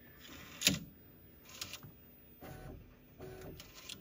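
Bambu Lab H2D 3D printer's toolhead swapping nozzles. A sharp click comes under a second in, then a few short motor whirs as one nozzle lifts and the other lowers.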